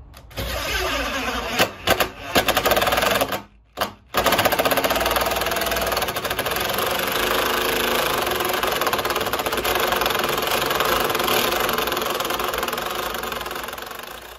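DeWalt 20V cordless impact driver hammering a 2.5-inch screw at an angle through a joist hanger's side hole into the beam. It starts in a few short runs, stops briefly, then hammers steadily for about ten seconds and eases off near the end as the screw seats.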